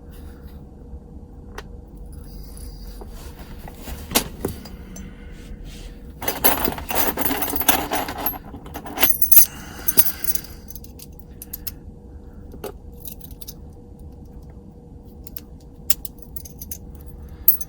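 Small metal objects jangling and clinking for about three seconds, starting about six seconds in. Single sharp clicks and knocks come before and after it.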